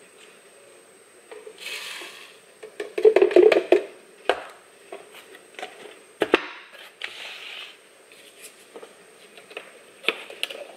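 Dry quick oats pouring and rattling out of a canister into a plastic blender cup, loudest about three seconds in, with a sharp knock of a container set down on a stone countertop a few seconds later and small taps and clicks of handling.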